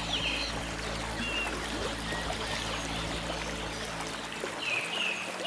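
Water running and trickling in a wetland, with a bird giving a quick series of about five short, high calls near the end.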